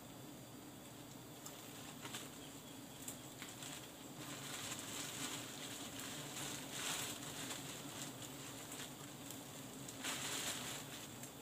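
Faint steady buzzing of wild honey bees around their exposed comb, under rustling of leaves and branches that swells a few times, loudest about a second before the end, as someone climbs up to the nest.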